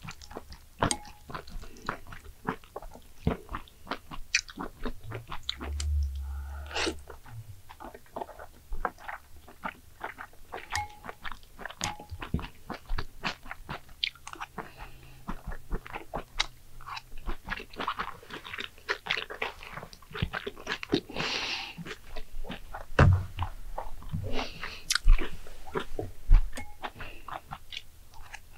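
Close-miked eating sounds: chewing and biting, with many small, sharp, irregular clicks.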